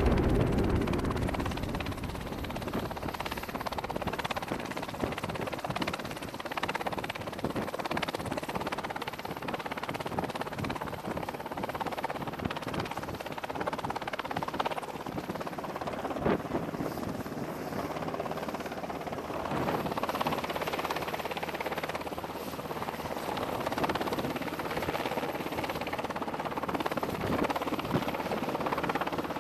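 MH-60 Seahawk helicopter running on a carrier flight deck: the steady whine and rush of its twin turboshaft engines and turning rotor, with scattered clicks and knocks.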